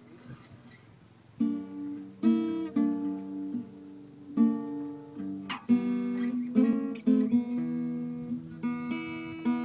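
Acoustic guitar strumming chords, starting about a second and a half in and going on in irregular strokes.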